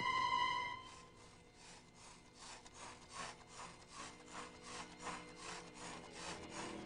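A steady high tone dies away, then rhythmic rasping strokes, about three a second, like sawing or scrubbing, grow gradually louder.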